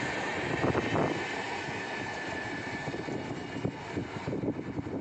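Passing express train's rolling rumble as its rear power car goes by, with a few louder wheel knocks about a second in, then the noise fading as the train draws away.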